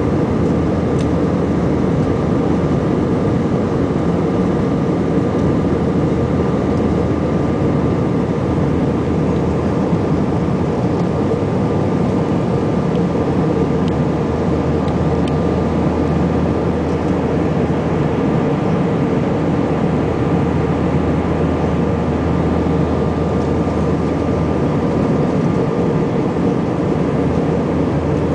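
Cabin noise inside an Airbus A320-family jetliner in flight: the steady drone of the jet engines and rushing airflow, heard from a seat over the wing, with a faint steady whine above it.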